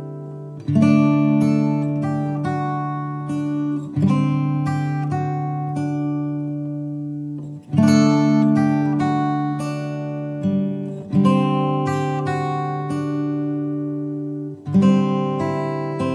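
Background music: acoustic guitar strumming chords, a fresh chord struck about every three to four seconds and left to ring, with picked notes in between.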